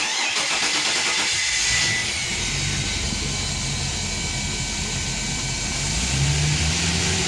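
The Four Winns 268 Vista's V8 engine starting: a burst of noise for about two seconds as it cranks and catches, then running smoothly at idle, picking up slightly about six seconds in.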